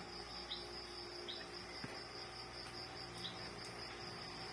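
Crickets trilling steadily in the background, with a few faint short chirps and one small click a little under two seconds in.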